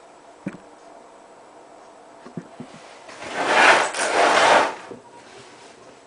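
Hotpoint Ultima WT960 washing machine drum turning during a 95°C boil-wash, still heating: a sharp click about half a second in and a few light knocks, then a loud whoosh of sudsy water sloshing in the drum for about a second and a half, from about three seconds in.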